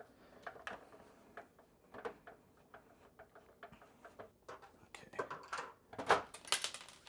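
Light, irregular clicking of a hand screwdriver working out a screw from the exercise bike's plastic side panel, with louder clattering handling noise about five to six and a half seconds in.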